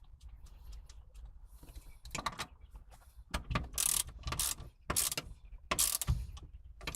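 Socket ratchet clicking in a series of short strokes as a 10mm bolt on a car's short shifter assembly is tightened down, faint at first and louder from about two seconds in.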